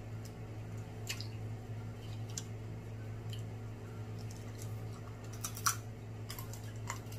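Snow crab legs being eaten close to the microphone: scattered sharp clicks and cracks of shell and mouth sounds, the loudest about five and a half seconds in, over a steady low hum.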